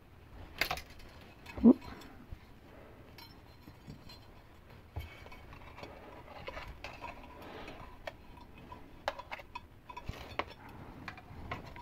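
Small handling sounds of fine stainless steel wire being threaded through a micrometer part: faint, scattered clicks and ticks of metal on metal, with a sharper knock about a second and a half in.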